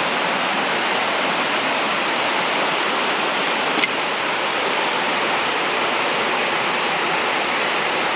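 Steady rushing of a small mountain stream's water over rocks, with a single brief click about four seconds in.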